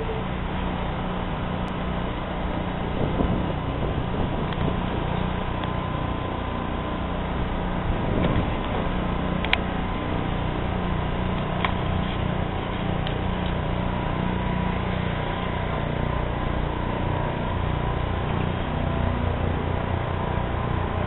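Steady mechanical running noise with a low hum, broken by a few light clicks.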